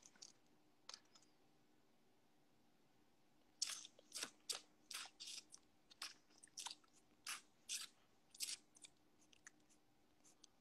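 Faint, irregular crisp clicks and crunches close to the microphone, about two a second, starting a few seconds in and thinning out near the end.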